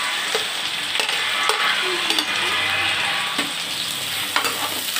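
Sliced onions sizzling and frying in hot oil in a kadhai as they go in and are stirred, with a steady hiss and a few sharp knocks of utensils against the pan.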